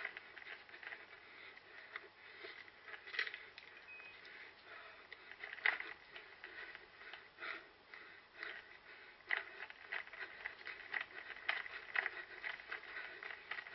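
Footsteps and rustling of a runner crossing rough ground: irregular soft footfalls and scuffs.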